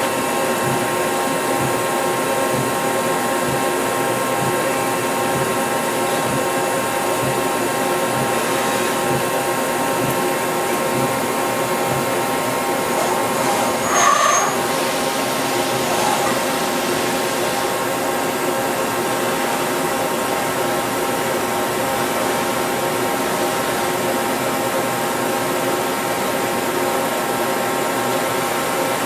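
Milltronics RH-25 CNC mill running, a steady machine whir with several held tones. About halfway through there is a brief louder squeal.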